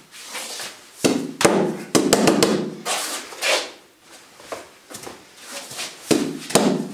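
Hands striking the padded wall bag and arm of a Wing Chun wall-bag and wooden-dummy training device. There are single thuds and slaps about a second in, a quick run of several strikes about two seconds in, and a few more hits near the end.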